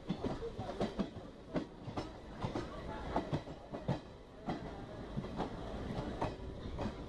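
Train running along the line, heard from on board: a steady rumble with repeated sharp wheel clacks over the rail joints at uneven intervals.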